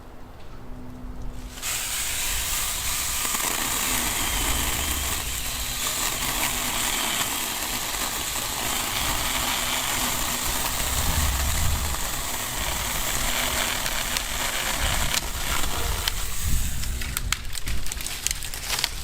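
Saker mini cordless electric chainsaw cutting through a log: the chain runs through the wood as a steady, even noise for most of the time, starting about a second and a half in. It breaks off into scattered clicks and knocks near the end.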